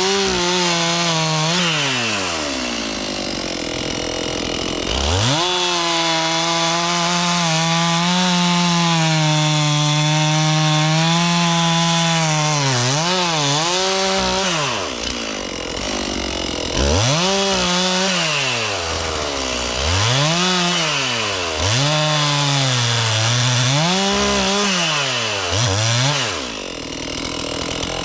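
Gas chainsaw cutting wood. It is held at high revs through a long steady cut, then revved up and down in a run of short throttle bursts through the second half.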